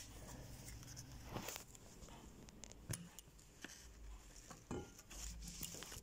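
Faint handling noise: a few short, sharp clicks spaced about a second apart over light rustling.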